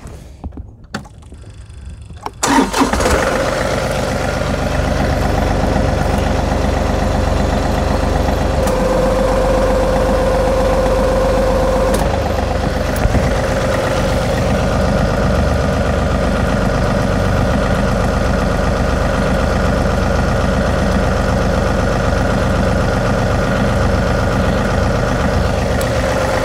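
John Deere 3038E compact tractor's three-cylinder diesel engine starting about two and a half seconds in, then running steadily as the hydraulic three-point hitch lifts to its top.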